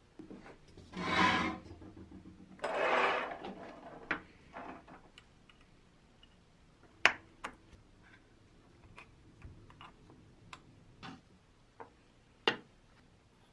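Handling noises on a wooden workbench. Two short scrapes in the first few seconds as a rusted steel helmet is turned on the table, then scattered sharp clicks and taps as small metal tins and their lids are set down and opened, the loudest about seven and twelve and a half seconds in.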